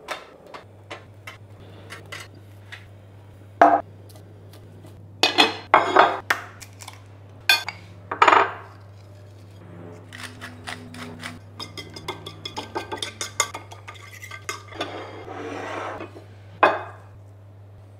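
Kitchen handling sounds of dishes and utensils: separate knocks and clinks, then, from about ten seconds in, a fast run of clinks as a metal fork beats an egg on a ceramic plate. A low steady hum runs underneath.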